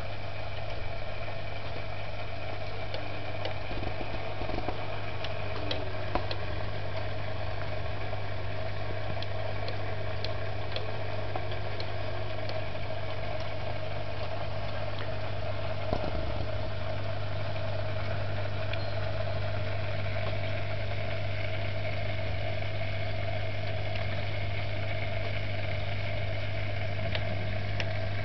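Steady electric hum of an aquarium pump, with a strong low buzz, and a few brief clicks.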